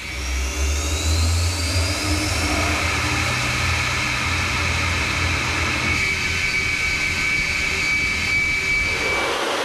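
Pratt & Whitney F119-PW-100 afterburning turbofan running at high power with its afterburner lit: a heavy low rumble under a dense rushing noise and a high whine, which rises in pitch in the first couple of seconds. The low rumble drops away just before the end.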